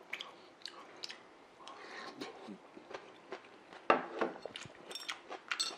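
Close-miked eating sounds: chewing a mouthful of salad, with scattered clicks and taps of a plastic fork against a plastic bowl. The loudest click comes about four seconds in.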